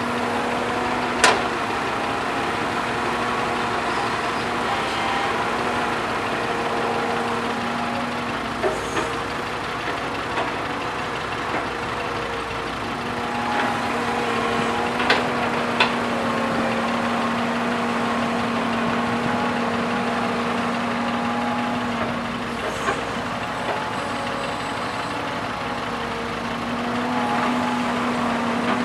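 Heavy diesel engine of an excavator or dump truck running steadily, with a few sharp knocks.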